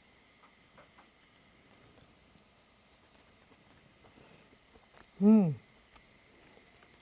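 A woman's short hummed "mmm" of enjoyment while tasting food, rising then falling in pitch, about five seconds in. Faint steady insect chirring, like crickets, runs underneath.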